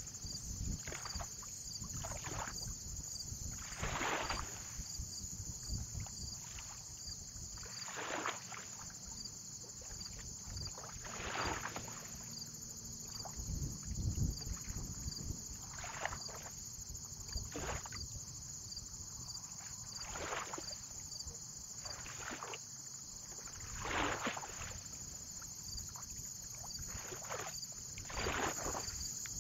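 Small waves lapping and splashing at irregular intervals, a soft swish every one to four seconds, over a low rumble of wind and a steady high-pitched hiss.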